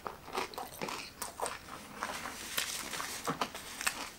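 Close-up chewing of a mouthful of cheese-filled pork katsu, the fried breaded crust giving irregular soft crunches and wet clicks.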